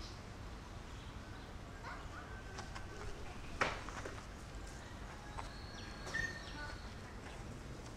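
Outdoor ambience: a steady low rumble with a few faint, short bird chirps, and one sharp click about three and a half seconds in.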